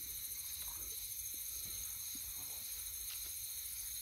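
Steady chorus of night insects, several high-pitched trilling bands sounding together without a break, over a faint low rumble and a few soft ticks.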